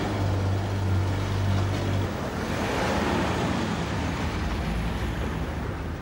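A car engine running with a steady low hum, then a swell of engine and tyre noise about halfway through as the car pulls away.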